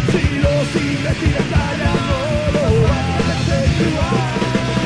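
Hardcore punk band playing live: dense, fast drum hits under distorted guitar and bass, with a shouted vocal line wavering over the top.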